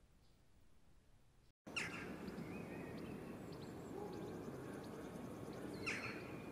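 Near silence for about a second and a half, then outdoor ambience comes in suddenly: a steady background hiss with short bird chirps. The two loudest chirps come just after it starts and near the end.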